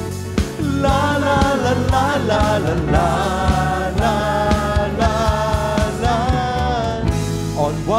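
Worship band and singers performing a worship song: voices hold long sung notes over a steady drum beat and band accompaniment.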